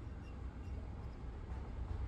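Steady low rumble of outdoor background noise with a faint hiss, and no distinct event.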